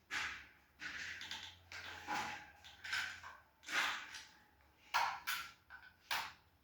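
Hands plugging wire connectors into a lighting controller: a string of short clicks, scrapes and rustles of plastic and cable, about eight in all, with a faint hum underneath.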